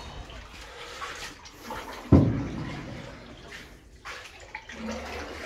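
Water splashing and lapping around a canoe as it is paddled through a brick-lined tunnel, echoing off the walls. One sharp knock about two seconds in, the loudest sound, which dies away over about a second.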